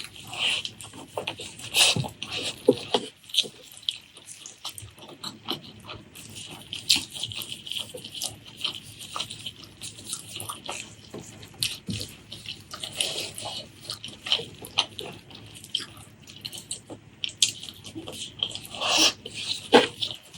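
Close-miked mouth sounds of a person eating: wet chewing and lip smacks in many irregular short clicks, with a louder cluster of smacks near the end.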